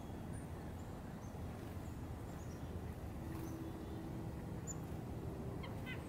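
Short, thin, high chirps of small wild songbirds scattered over a steady outdoor hush, with a low held note a little over three seconds in and a quick run of chirps near the end.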